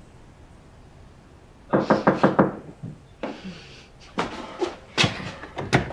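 Knocking on a door: a quick run of raps about two seconds in, then a short rustle and a few more scattered knocks.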